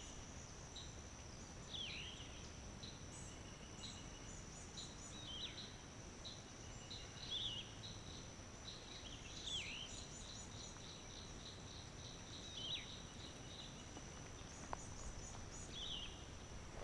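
Forest ambience: a steady, high-pitched insect trill with birds calling over it, short repeated chirps and a falling call every few seconds.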